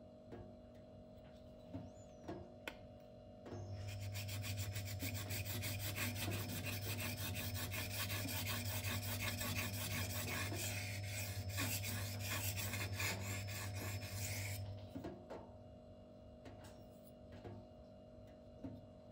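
An M390 steel knife blade is stroked rapidly back and forth on a Shapton whetstone, giving a steady gritty scraping that starts a few seconds in and stops about eleven seconds later. A few light taps come before and after it. The blade is being ground to a new, lower bevel that does not yet reach the apex.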